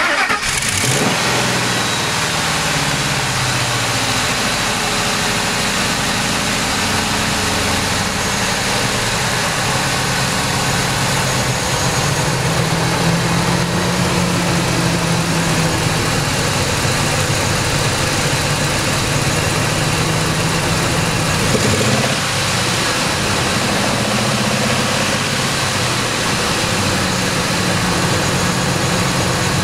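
Ford 5.4 L Triton V8 idling steadily, with a brief small blip about 22 seconds in.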